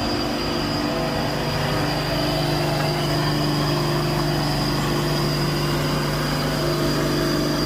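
Diesel engine of a Hino tractor unit pulling an empty flatbed semi-trailer, running steadily at one speed as the truck crawls slowly past close by. A thin high whine runs over the engine.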